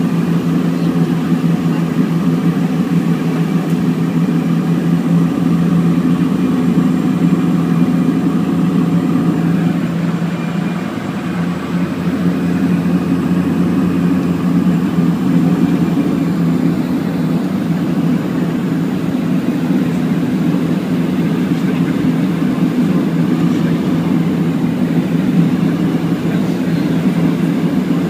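Cabin drone of a de Havilland Canada DHC-6 Twin Otter, its two Pratt & Whitney PT6A turboprop engines and propellers running steadily as it descends to land. The drone eases briefly about ten seconds in, then returns to its level.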